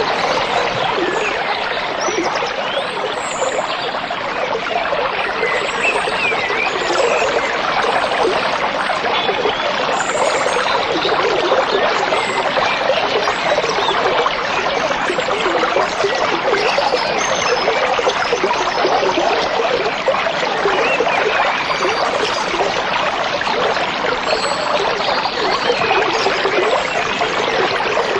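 A stream babbling and trickling over stones, a steady rush of water, with faint bird chirps above it.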